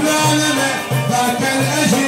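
Live Iraqi folk music played by a small ensemble with oud and violin, an instrumental passage with no clear singing.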